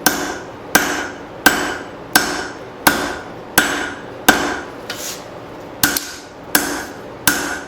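Heavy blacksmith's hammer striking hot leaf-spring steel on an anvil, drawing out and thinning a knife handle: steady blows about every 0.7 seconds, each with a short metallic ring.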